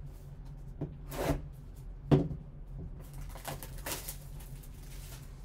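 Gloved hands handling a sealed cardboard trading-card box and its plastic wrapping: a few soft knocks and a louder thump about two seconds in, then rustling and crinkling of plastic.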